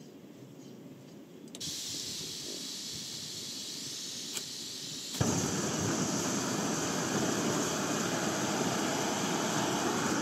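Gas hissing from a screw-on backpacking canister stove as its valve is opened; a single click a few seconds later, then the burner lights suddenly and burns with a steady, louder rushing noise.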